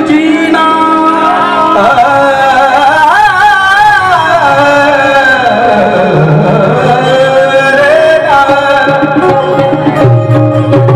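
Live Indian devotional song: a man's voice holding a long, wavering melodic line without words, over sustained harmonium chords and hand-drum accompaniment.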